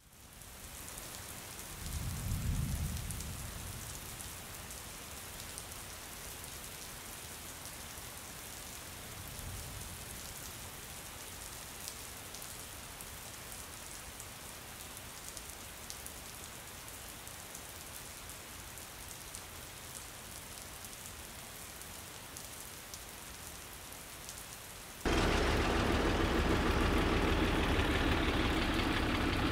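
Steady rain falling, with two low rumbles of thunder, one a couple of seconds in and one about ten seconds in. Near the end it cuts abruptly to a much louder vehicle engine running.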